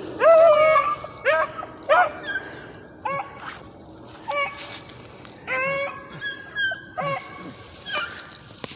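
Puppies yelping: a string of short, high-pitched cries that are loudest in the first two seconds, then come fainter and more scattered.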